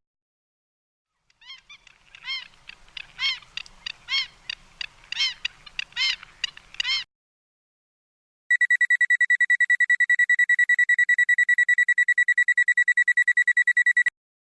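A string of short chirps, then rapid high-pitched electronic beeping, about eight beeps a second, like an alarm that cuts off suddenly.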